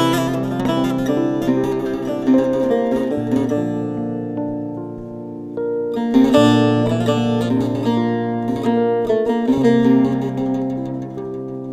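Background music led by plucked acoustic guitar, with sustained notes over a steady bass; it thins out around five seconds in and grows fuller again about a second later.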